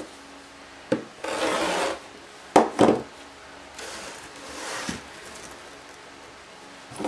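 Fiskars rotary cutter and stacked plastic deco mesh on a self-healing cutting mat, with the mesh being cut and handled. There is a click and then a loud scraping rasp about a second in, and two sharp knocks just before halfway. A longer, softer rustle follows as the mesh is slid and smoothed by hand.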